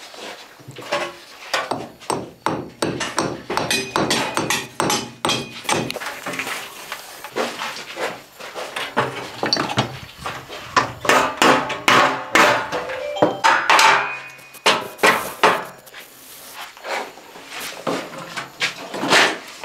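Hand hammer knocking on concrete-block masonry in many irregular blows, the heaviest in the second half.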